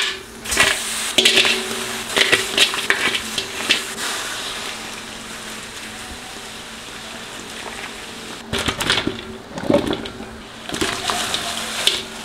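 Blue crabs and other seafood clattering into a large metal wok, the shells knocking against the metal. In the middle there is a steady rush of soda being poured over the crabs, and more clattering comes near the end.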